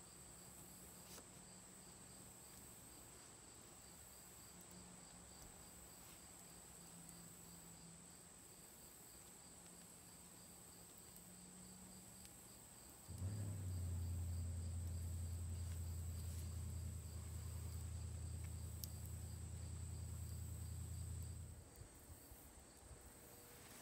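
Crickets trilling, a steady high-pitched note with a softer pulsing chirp beneath it. About halfway through, a loud steady low hum starts suddenly and cuts off just as suddenly some eight seconds later.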